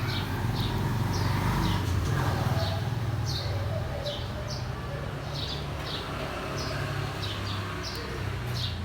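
Bird chirping: a run of short, high chirps, each sliding downward, repeating about twice a second over a steady low hum.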